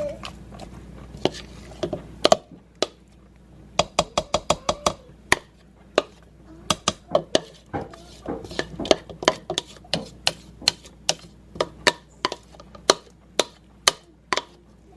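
A spoon repeatedly tapping and scraping against a dish while a casserole is spooned together: sharp, irregular clinks, with a quick run of taps about four seconds in.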